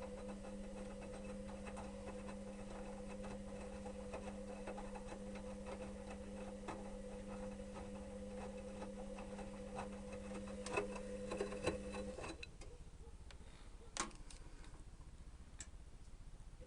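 Electrolux EWS 1045 front-loading washing machine during the wash: the drum motor hums steadily while the tumbling drum and laundry make light clicks and knocks. About twelve seconds in, the motor stops for the pause between tumbles, leaving a few isolated clicks.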